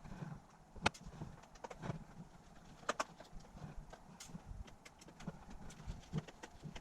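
Sparse sharp clicks and light taps of small tools and plastic parts while a Dell G7 7790 laptop is being taken apart, with a few dull knocks beneath.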